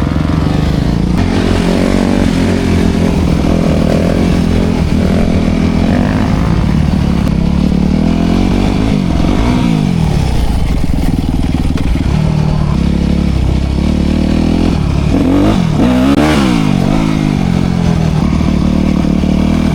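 Dirt bike engine running hard, its pitch rising and falling as the throttle is opened and closed, with a couple of clear rev swells about halfway through and again near the end.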